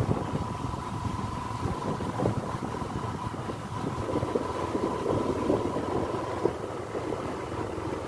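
Vehicle driving along a dirt road: a steady engine and road rumble with a thin, steady whine that fades about six and a half seconds in.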